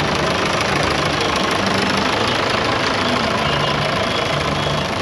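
Engine of a vintage blue Fordson tractor running steadily as it drives slowly past at close range.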